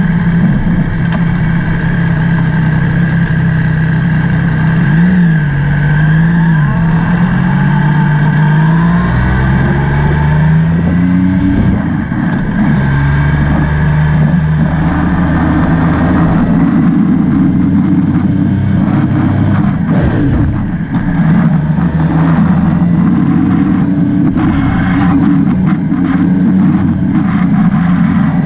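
Motorbike engine running under way, its pitch rising and falling several times with the throttle in the first half, then holding steadier, over wind and road noise.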